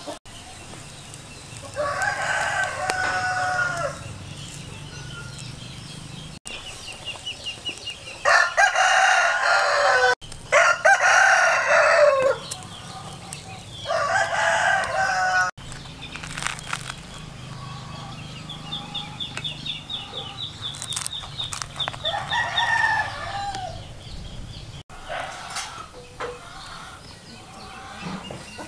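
Roosters crowing, about five drawn-out crows of roughly two seconds each, with chickens clucking between them.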